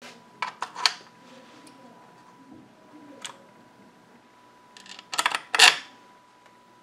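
Small metallic clicks and taps from a three-position rotary power switch and its metal knob being handled: three clicks near the start, one a few seconds in, then a louder quick run of clicks about five seconds in, like the switch being turned through its detents. A faint steady high tone sits underneath.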